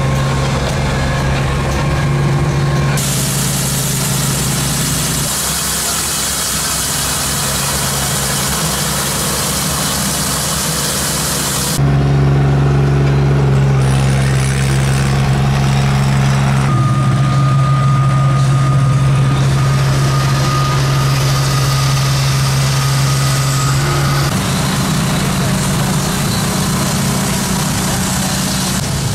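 Construction machinery running: a steady, engine-like hum that changes abruptly several times as the footage cuts from one machine to another.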